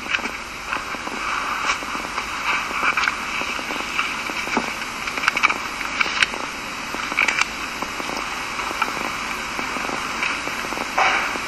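Steady hiss with scattered crackles and clicks.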